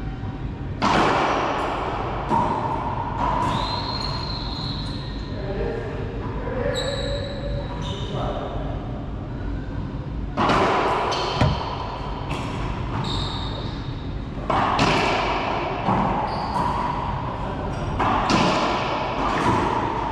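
Racquetball rally: the rubber ball cracking off racquet strings, the front wall and the floor in a run of sharp, uneven hits, each ringing on around the enclosed court. Brief sneaker squeaks on the hardwood floor come between the hits.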